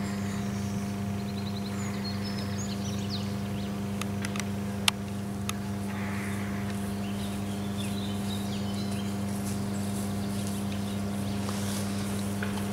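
Steady electrical hum of substation power transformers, a low buzz with several overtones. Small birds chirp over it, and there is one sharp click about five seconds in.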